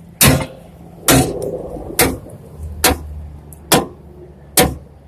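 Sledgehammer blows on a bent aluminum trailer fender, six strikes at a steady pace of a little under one a second, each with a brief metallic ring. The fender is being beaten back after a tire blowout so the spare tire will not rub on it.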